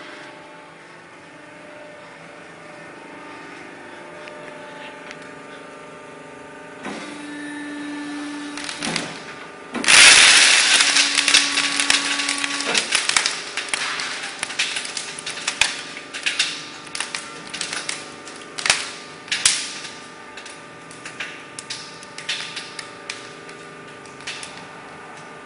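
Bubble wrap being popped. The first several seconds hold only a steady hum; about ten seconds in a dense, crackling run of pops begins, which then thins out into scattered single pops, a few of them loud.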